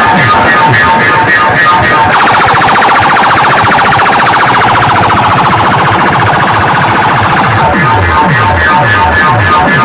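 DJ sound system playing music at high volume. From about two seconds in to near the end, a fast-pulsing, alarm-like electronic siren effect takes over the mid range. Falling bass sweeps repeat underneath.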